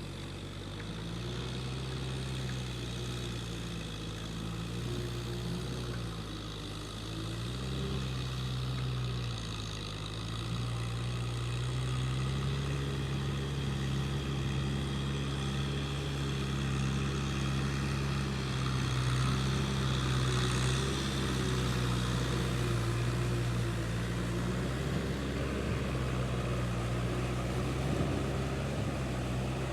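An engine running steadily, its pitch dipping and coming back up a few times in the first ten seconds, then holding steady and a little louder from about twelve seconds in.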